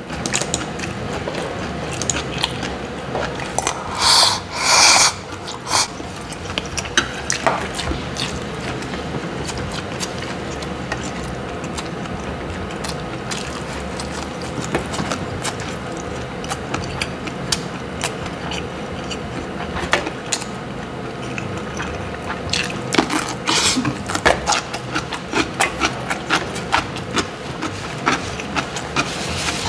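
Close-up eating sounds of a man's packed lunch: chewing, and disposable wooden chopsticks clicking and scraping against metal lunch-box dishes, over a steady low hum. A few louder noisy bursts stand out about four seconds in and again near twenty-three seconds.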